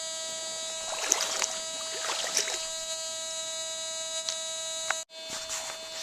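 Fisher Gold Bug metal detector giving its steady threshold hum through its speaker, with two brief rustling scuffs about one and two seconds in. The sound cuts out for a moment about five seconds in.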